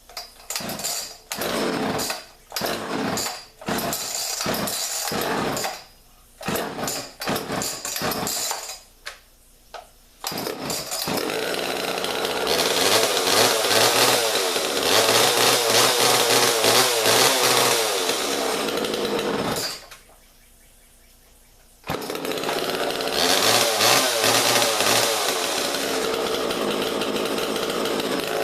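Two-stroke Homelite chainsaw being pull-started: a string of short bursts as the engine fires briefly and dies, until it catches about ten seconds in and runs, revving up. Its sound breaks off abruptly for about two seconds, then it is running again.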